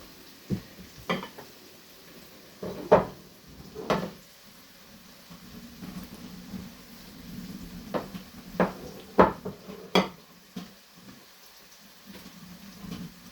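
A cooking utensil knocking and scraping against a pan at irregular intervals while onion and garlic fry in hot oil with a faint sizzle.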